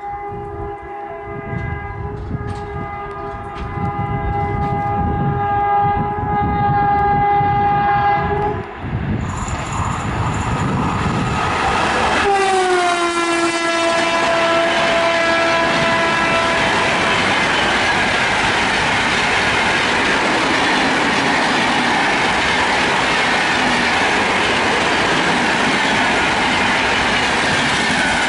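WAP4 electric locomotive at speed sounding a long, steady horn blast on approach. It honks again as it passes, and the horn's pitch drops sharply about twelve seconds in as the locomotive goes by, then fades. The steady rush and rail clatter of the express coaches rolling past follow.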